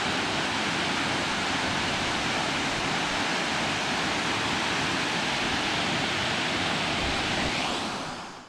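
Apsley Falls' waterfall giving a steady rush of falling water, fading out near the end.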